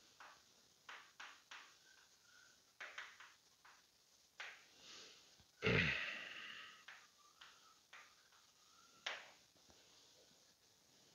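Marker writing on a classroom board: a scatter of short scratchy strokes and a few faint squeaks. About halfway through comes one loud puff of breath on the headset microphone, fading over about a second.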